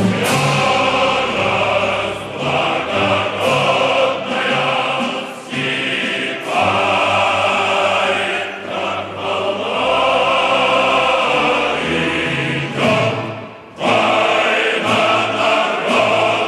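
Background music: a choir singing, with sustained held chords.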